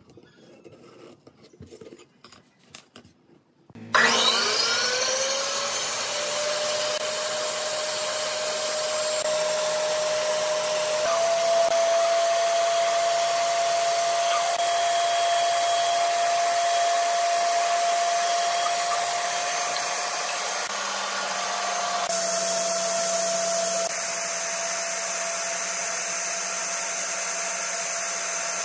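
Bandsaw starting up about four seconds in with a rising whine, then running steadily as its blade cuts a curve through a thick wooden block. Before it, only faint small sounds.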